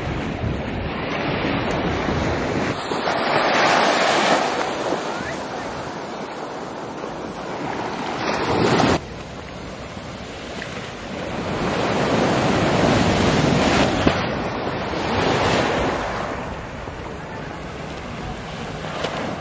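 Small waves washing up a sandy beach, swelling and fading every few seconds, with wind buffeting the microphone. The sound drops abruptly about nine seconds in.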